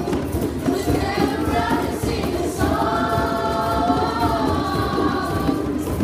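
Djembes played by hand together in a dense, steady rhythm, with a group of voices singing over them in long held notes.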